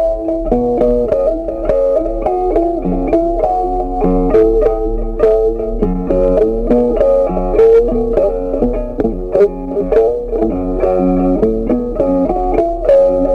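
Background instrumental music with a melody of plucked notes changing several times a second.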